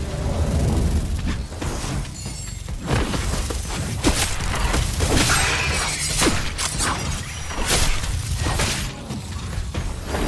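Action sound effects: a run of sharp crashes and impacts, about one a second, over a steady deep rumble, with music underneath.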